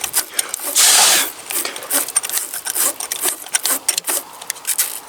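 Wire-brush battery terminal cleaner twisted back and forth against a corroded battery terminal: quick rasping scrapes, with one longer, louder scrape about a second in.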